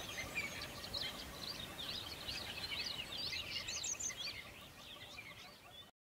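Small songbirds chirping and singing over a faint background hiss, fading out about five seconds in.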